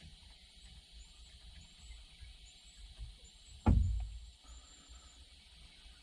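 A single sharp knock about two-thirds of the way in, over a low rumble, with faint high chirps in the background.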